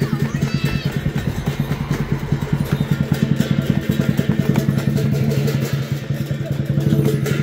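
Lion dance drum with cymbals, played in a fast, steady beat.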